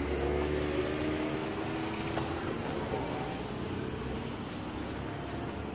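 A motor's hum with several tones, sliding slightly in pitch and fading out about two and a half seconds in, over a steady low rumble.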